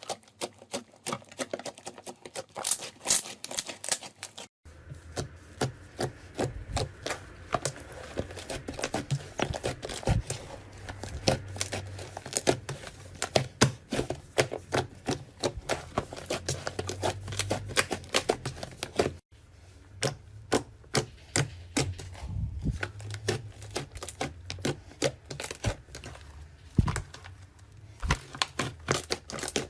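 Slime being squeezed and pressed by hand, crackling with rapid sharp clicks and pops, broken by short cuts about five and nineteen seconds in.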